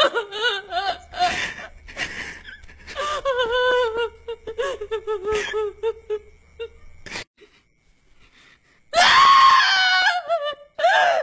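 A woman's voice wailing and crying out hysterically, in long high cries broken by gasps. The cries stop about seven seconds in, and after a short hush a loud scream-like wail comes about nine seconds in.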